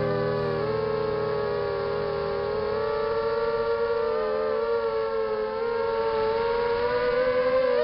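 Quadcopter's Emax 2300kv brushless motors and propellers whining steadily, several close pitches wavering slightly with throttle and rising a little near the end.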